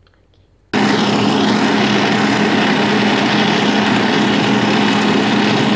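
A loud, steady whirr like a small electric motor, with an even hum under a rushing hiss. It starts abruptly just under a second in.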